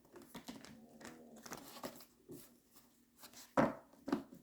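Tarot cards being shuffled and handled, a string of light riffling and rustling clicks with two louder slaps near the end.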